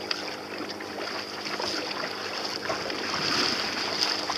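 Water sloshing and splashing against the hull of a small boat under way on choppy sea, with scattered small splashes over a steady high hiss.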